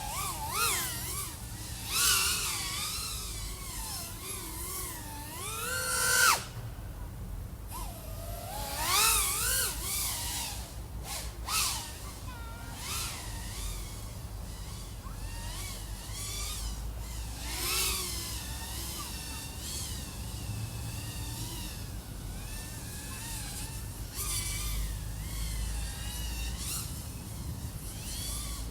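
Electric motors of an iFlight AOS 3.5-inch FPV quadcopter (XING 1504 3100KV) whining in flight, the pitch rising and falling constantly with the throttle, with several loud throttle punches. The whine cuts off suddenly about six seconds in and climbs back a second or two later.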